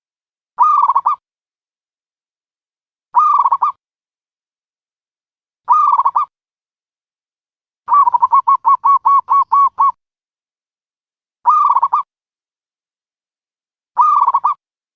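Dove calls used as a trapping lure: short cooing calls repeated about every two and a half seconds, with a rapid run of about nine quick coos in the middle.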